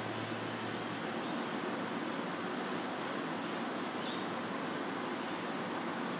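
Outdoor ambience: a steady rushing background noise with a run of short, very high chirps, about two a second.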